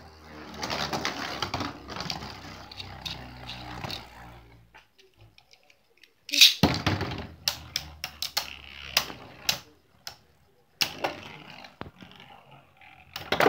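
Metal Beyblade spinning tops whirring on a plastic stadium floor, with a steady low hum at first. About six seconds in there is a sudden loud clatter, followed by rattling clacks and sharp knocks as the tops strike each other and the stadium walls.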